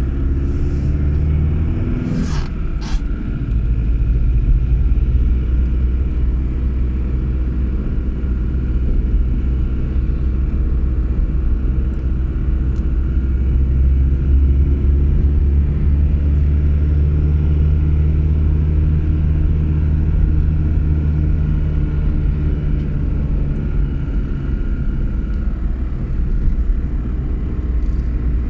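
A steady engine rumble with a low drone, with two short clicks about two to three seconds in.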